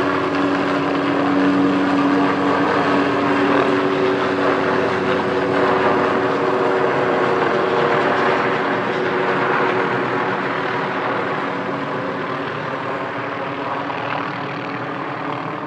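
Helicopter running steadily, a continuous engine-and-rotor noise with a low held hum, growing a little fainter over the last few seconds.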